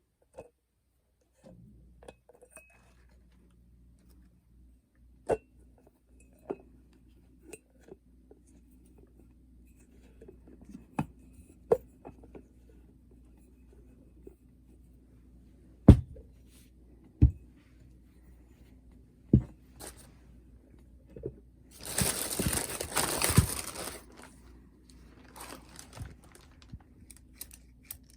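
Unboxing sounds as merchandise and packaging are handled: scattered light knocks and clicks as items are set down and moved, and late on about two seconds of crinkling, tearing packaging.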